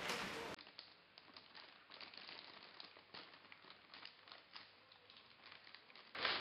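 Kettle Brand potato chip bag crinkling with irregular small crackles as a hand rummages inside it for chips. A louder, brief noise fills the first half second before the crinkling starts.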